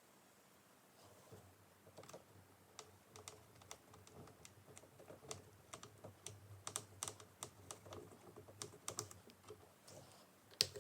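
Faint, irregular light clicks and taps of small screws and plastic parts being handled and screwed into a laptop's screen assembly with a small screwdriver. There is one louder click near the end.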